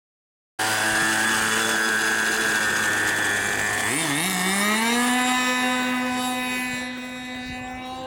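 RC model airplane engine running steadily, then throttling up about four seconds in, its pitch climbing to a higher, steady note. The level drops somewhat near the end as the plane heads away.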